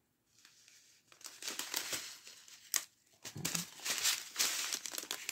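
Small zip-lock plastic bags of diamond-painting rhinestones crinkling as they are handled, starting about a second in.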